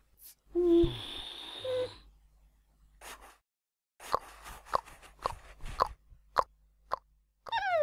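Cartoon sound effects. About half a second in there is a loud pitched squeak with a rush of noise. It is followed by a run of quick, light taps like scurrying footsteps, and a falling glide near the end.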